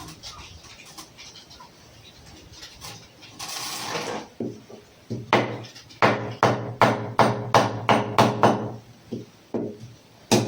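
Hammering: a run of sharp knocks, about three a second, with a short ringing tone after each, and a few single knocks near the end. A brief scraping hiss comes a few seconds before the knocks.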